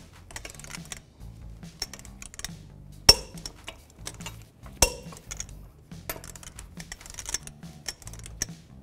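Click-type torque wrench with a 22 mm socket tightening wheel lug nuts: quick ratchet ticks, and two much louder sharp clicks, about three and five seconds in, as the wrench breaks over at its set torque of 140 foot-pounds.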